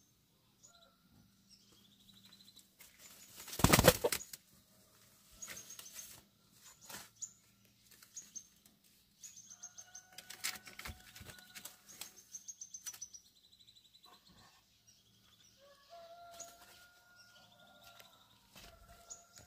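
Birds chirping in many short, falling chirps, with a brief, loud flurry like wing flapping about four seconds in. A few longer, steady calls come in the second half.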